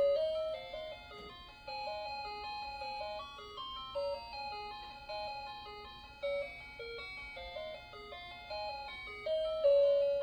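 Quartz cuckoo clock's built-in electronic melody playing a simple chime tune of short notes, finishing on a longer held note near the end.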